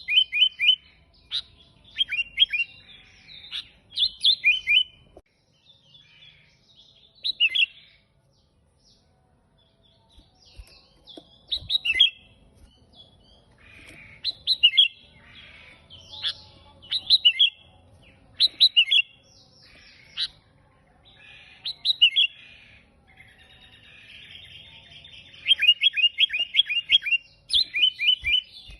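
Sooty-headed bulbul (kutilang) singing in short bursts of quick, falling whistled notes every second or two, with a pause about eight seconds in and a faster run of notes near the end.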